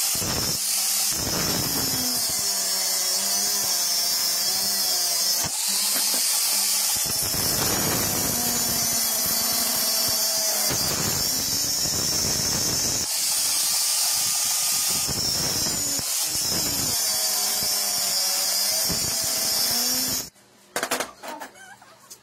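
Hand-held angle grinder with a thin cutting disc cutting through a steel motorcycle sprocket: a loud, steady, high-pitched whine whose lower sound shifts several times as the disc works through the cut. It cuts off about 20 seconds in, followed by a few brief clatters.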